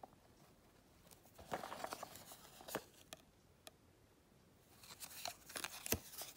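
Faint handling noises: gloved hands rustling against a small leather pouch and a paper card, in two short spells with a few light clicks and taps.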